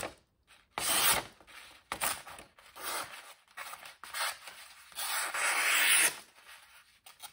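Folding knife's CPM 20CV blade slicing through a sheet of paper as an edge test: a series of short slicing strokes, with a longer, louder cut about five seconds in.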